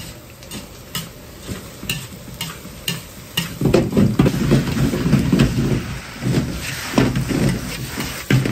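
Fried rice being stir-fried in a large wok over a gas burner. A metal wok spatula scrapes and knocks against the steel wok, and the rice sizzles; the tossing gets louder about three and a half seconds in.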